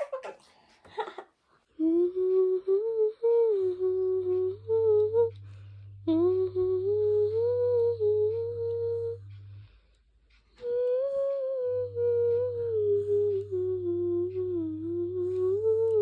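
A woman hums a slow, wordless lullaby to a baby to lull him to sleep. It breaks off for about a second roughly ten seconds in and then resumes.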